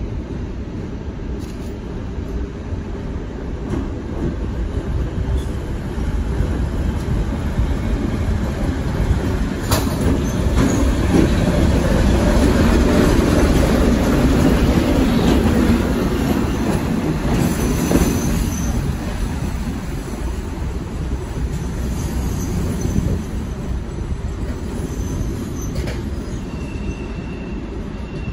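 ČKD ChME3T shunting diesel locomotive, with its six-cylinder diesel engine, running past: the low engine rumble grows as it comes near, is loudest about halfway through as it passes, then fades as it moves away. A few sharp clicks come from the wheels over the track.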